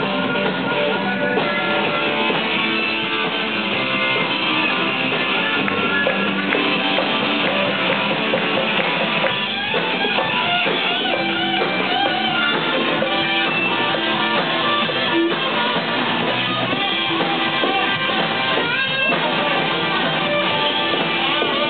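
Live band jamming an instrumental: a guitar playing, with a harmonica playing along over it.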